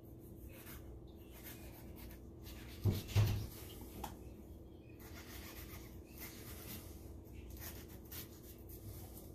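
Knife slicing into a jalapeño on a cutting board: quiet scraping and rubbing strokes, with two dull knocks about three seconds in.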